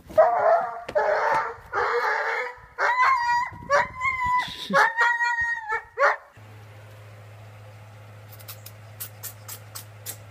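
A dog barking a few times, then giving a run of high, held yelping cries, each lasting about half a second to a second. About six seconds in the calls stop and a low steady hum with scattered light ticks is left.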